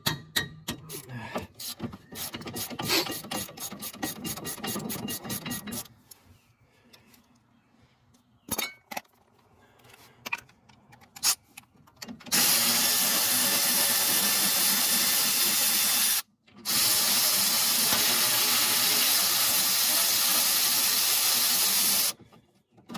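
A socket wrench clicking rapidly as it works a bolt, then a power tool running loudly and steadily in two long runs with a short break between them. This is the removal of the Loctited 17 mm brake caliper bracket bolts.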